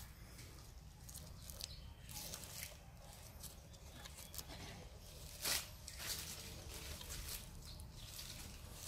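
Faint rustles and small clicks of hands working a mango top graft, fitting the scion and handling a thin polythene grafting strip, with one louder crackle about five and a half seconds in.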